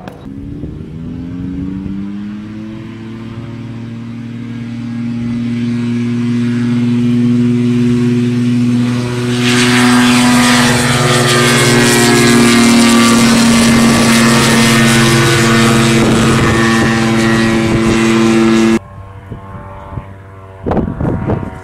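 Belite UltraCub Tri-Gear ultralight's 50 hp Hirth two-stroke engine and propeller running at climb power. The note rises in pitch at first, then holds steady and grows louder as the plane comes close, with a rush of air noise joining about halfway. It drops suddenly to a faint drone near the end.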